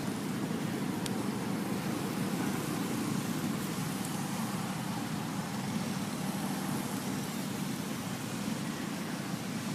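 Steady low background rumble with no distinct events, typical of outdoor ambience.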